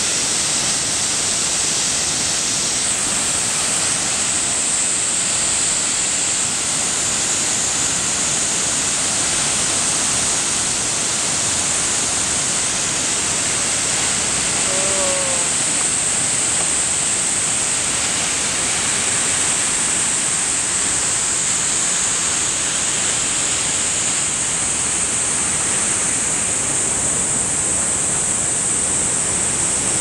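Steady rushing noise of a tall waterfall, about a 50 m drop, pouring into its plunge pool and heard across the gorge. A steady high hiss lies over it.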